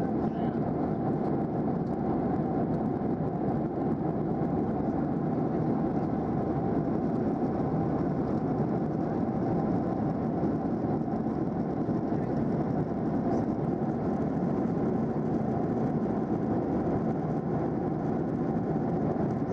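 Steady cabin noise of a Boeing 737-800 in cruise: the CFM56-7B turbofan engines and the airflow over the fuselage make an even, unchanging rush.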